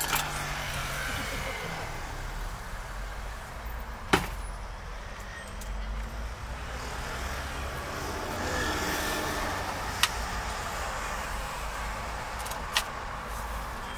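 Outdoor street background noise: a steady low rumble and hiss, broken by a few sharp clicks or knocks, the loudest about four seconds in.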